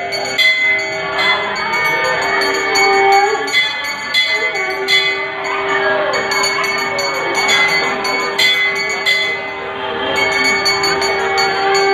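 A hand bell struck over and over, about once a second, over a long steady blown note that stops for about a second near the four-second mark and then carries on, with people talking underneath.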